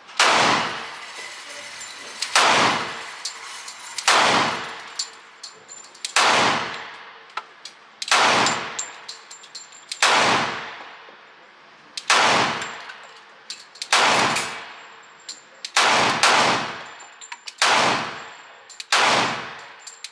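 Glock 30S .45 ACP pistol fired at a slow, steady pace, about a dozen shots roughly two seconds apart, each followed by a long echo off the indoor range walls, with light clinks between shots. It is a function test of the pistol, and it runs without a stoppage.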